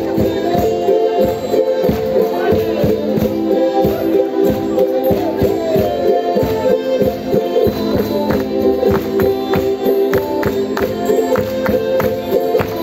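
Live Madeiran folk dance music: held melody notes over a steady beat of sharp percussive strikes.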